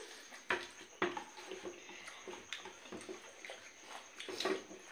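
People eating roti by hand from steel plates: scattered short mouth smacks and clicks of chewing, with fingers tearing bread against the plates.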